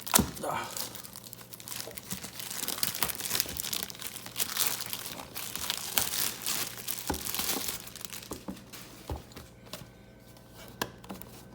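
Packaging being unwrapped by hand: wrapping crinkles and tears in a dense run of crackles and clicks, with one sharp click right at the start, growing sparser near the end.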